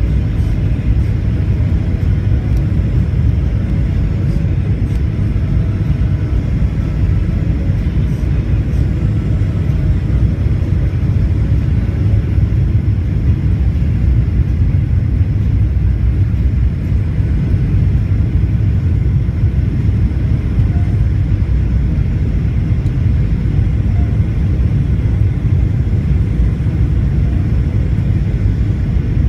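Cabin noise of a Boeing 737 jet airliner on approach, heard from a window seat over the wing: a steady low rumble of engines and airflow, with a faint hum above it.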